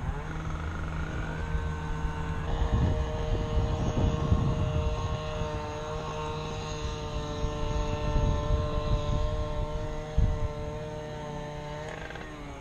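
A steady motor-like drone with several held tones over a low rumble, cutting off suddenly near the end.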